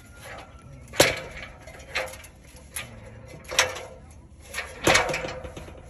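Aluminium extension ladder clanking under a person's feet as she climbs down the rungs: five knocks about a second apart, the first and the last loudest.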